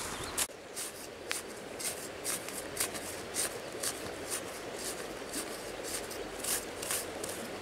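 A large knife blade digging into soil: a run of short scratchy scraping strokes, roughly two a second, as earth is loosened and scraped out of a small hole.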